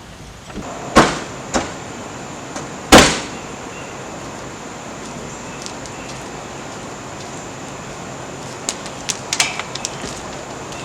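Two loud bangs about two seconds apart, with a couple of smaller knocks between them, then a quick run of light clicks and taps near the end, over a steady hiss.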